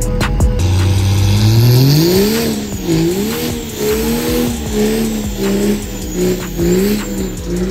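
Pickup truck doing a burnout: the engine revs climb steadily for about two seconds, then rise and fall again and again as the tires spin.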